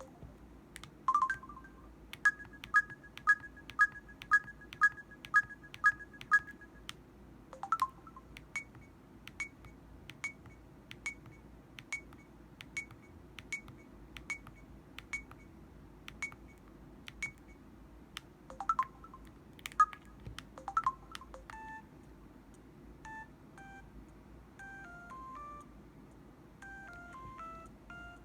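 Samsung Anycall SPH-W5200 mobile phone playing its built-in sound effects: a run of short electronic beeps, first two-note beeps about one and a half a second, then single higher beeps a little under a second apart. Near the end comes a quick string of short tones stepping up and down in pitch, like a short jingle.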